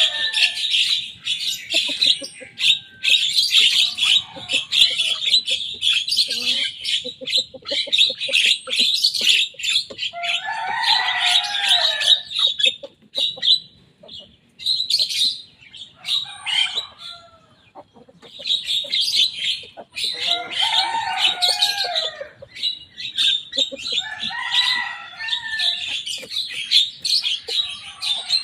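Javan myna (jalak kebo) singing in full voice: a long run of rapid, harsh chattering and whistled notes, broken every few seconds by lower, rougher phrases, with two brief lulls in the middle.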